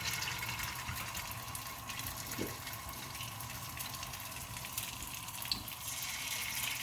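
Marinated, corn-flour-coated chicken pieces sizzling in hot oil in a frying pan: a steady hiss with scattered small crackles and pops.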